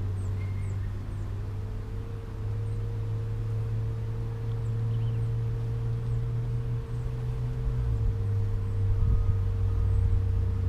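Steady low hum of a honeybee colony at an opened hive, with a thin steady higher buzz from about a second in.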